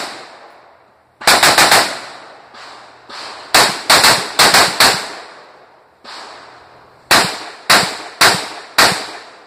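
AR-style rifle fired in quick strings of shots, each report with a short echoing tail: a rapid burst of four about a second in, about five more around the four-second mark, then four spaced roughly half a second apart near the end.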